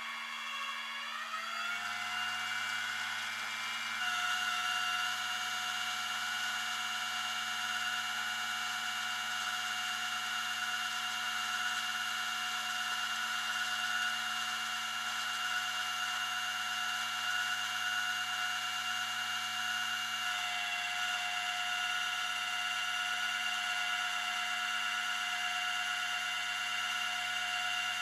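Rollback tow truck's winch pulling a minivan up the flatbed, a steady mechanical whine. It rises in pitch as it comes up to speed about a second in, steps up again at about four seconds, then holds steady.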